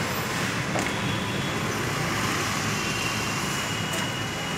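Steady background hum of road traffic, with a faint high thin tone coming in during the second half.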